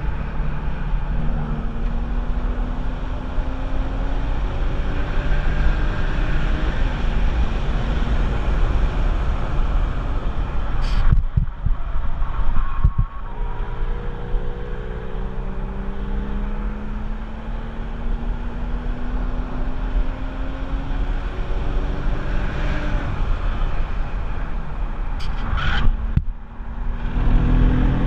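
Porsche 996 Carrera 4's 3.6-litre M96 flat-six pulling hard on track, its note rising steadily in two long accelerations. The engine note breaks off abruptly about a third of the way in and again near the end as the throttle lifts or the gearbox shifts, over a steady rush of noise.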